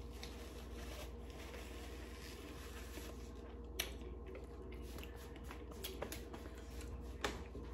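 Quiet room tone with a steady low hum, faint rustling and a few soft clicks as a paper napkin and food are handled.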